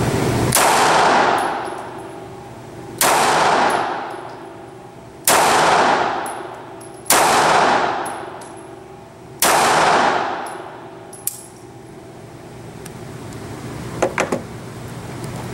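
A Frommer Stop Baby pocket pistol in 7.65 mm Frommer firing five single shots two to three seconds apart. Each crack is followed by a long ringing echo in the indoor range, and a few light clicks come near the end.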